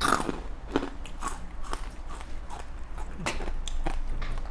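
A person chewing and biting food close to the microphone: irregular wet smacks and crunchy clicks of eating som tam with rice noodles.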